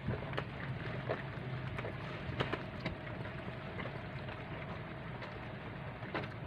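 Rainbow lorikeet biting and tearing at a piece of mandarin, giving scattered small clicks and ticks over a steady low hum.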